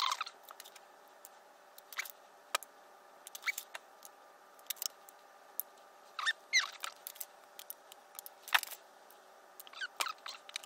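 Wire strippers working on 12 AWG wire: scattered sharp clicks and short squeaky chirps as the jaws close on the wire and pull the insulation off. The busiest clusters come about six seconds in and again near the end.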